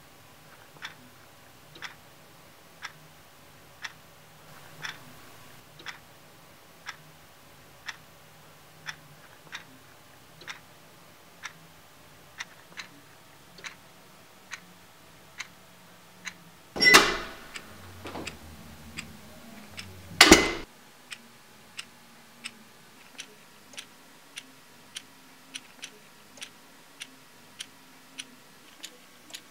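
Clock ticking steadily about once a second, the ticks coming faster, about twice a second, in the last several seconds. Two loud bangs about three seconds apart interrupt it midway.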